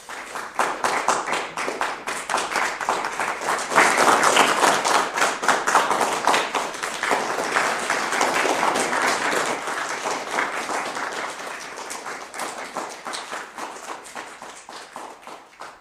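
Audience applauding, the clapping swelling about four seconds in and then slowly dying away.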